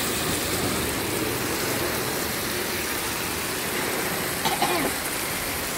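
Wahoo medallions and onions sizzling in butter and olive oil on a hot flat cooking disc: a steady, even hiss over a low rumble.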